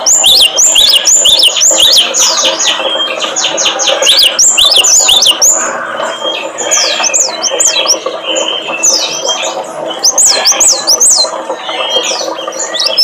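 Small songbirds calling and chattering without pause, many quick up-and-down whistled notes overlapping from several birds: a mixed lure recording of cinereous tit, prinia and white-eye.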